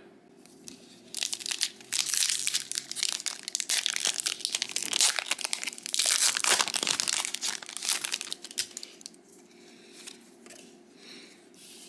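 Foil wrapper of a Disney Lorcana trading-card booster pack crinkling and tearing as it is ripped open by hand, for about seven seconds. Near the end it drops to softer rustling as the cards are drawn out.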